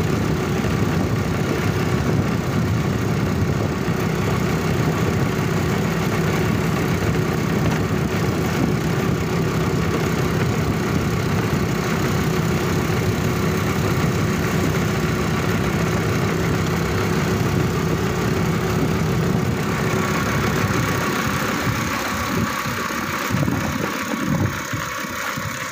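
Motorcycle engine running steadily while it is ridden along a wet road. Near the end the low engine sound thins out and becomes uneven.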